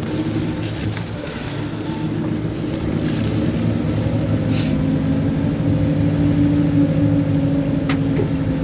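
Engine of a slowly moving vehicle, heard from inside the cabin: a steady low hum that grows gradually louder.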